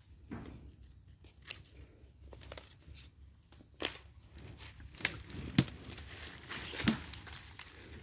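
Faint, irregular snips and rustling: hand pruning shears cutting back begonia stems, with leaves and stems crinkling as they are handled. There are about seven sharp clicks, spaced unevenly.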